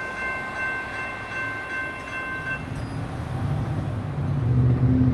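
Electronic crossing bell (General Signals Type 2) ringing steadily while the crossing gates rise, cutting off about two and a half seconds in. After that a road vehicle's engine grows louder toward the end.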